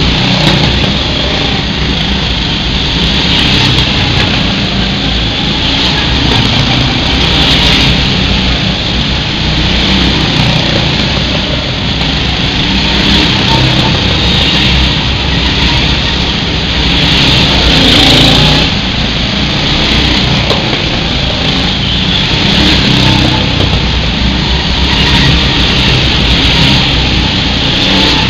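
Go-karts lapping a concrete track, their engine noise running continuously and swelling each time a kart passes close, every few seconds, loudest about 18 seconds in.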